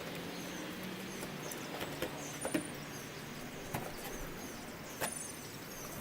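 Light clicks and knocks from a T25 Torx driver working the screws out of a car's plastic air filter box lid, with a few faint high squeaks over steady background hiss.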